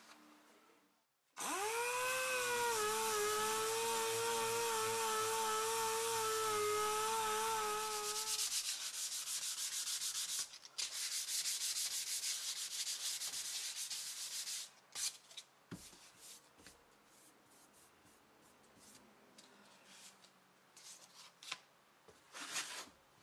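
Hand sanding a flat metal book-press plate with sandpaper. First comes a continuous scrub of about seven seconds with a wavering, whining tone over it, then rapid back-and-forth strokes, then scattered short strokes near the end.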